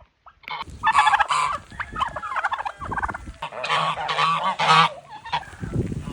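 Farm fowl calling loudly, in three bursts of calls over a few seconds.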